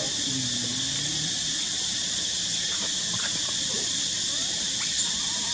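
Steady high-pitched insect drone with faint macaque calls over it: a low moan about half a second in, then scattered short squeaks as the monkeys wrestle.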